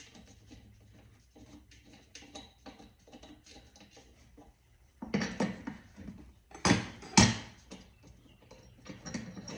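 Handling noise of a propane burner being fitted into a small melting furnace's burner port. Faint light clicks come first, then louder scraping and clunking about five seconds in, with two sharp knocks a little before the end.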